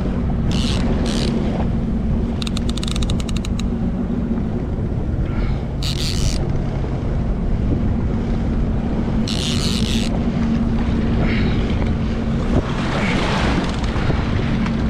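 Jet ski engine running steadily under a broad rush of wind and water noise. Several short high-pitched bursts come and go over it, one of them a rapid run of ticks about two and a half seconds in.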